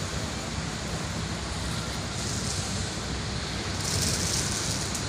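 Steady drone of the ferry's machinery heard on its open deck, with two hisses about two and four seconds in, the second longer.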